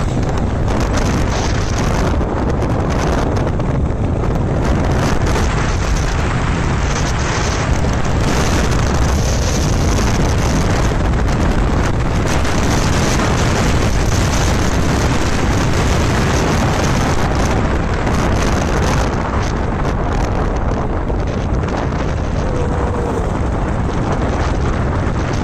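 Steady wind rush on the microphone of a moving motorcycle, mixed with the motorcycle's engine and road noise.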